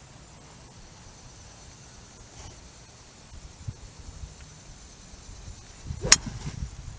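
A golf club striking a ball once, a sharp crack about six seconds in, over a steady high hum of insects; low rumbling on the microphone in the few seconds before the strike.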